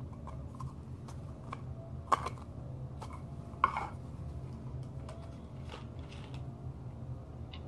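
A snuff tin and small objects being handled: light scattered clicks and taps, with two sharper knocks about two and three and a half seconds in, over a steady low room hum.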